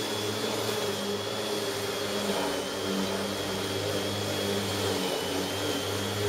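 Bosch Rotak 34 electric rotary lawnmower running steadily, a high whine over the motor's hum, dipping slightly in pitch about five seconds in.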